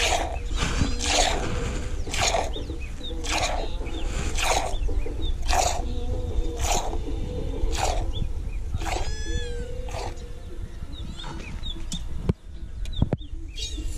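Milk squirting by hand from a cow's teats into a metal pot: a short hissing spurt about once a second, fading out after about ten seconds. A single knock sounds near the end.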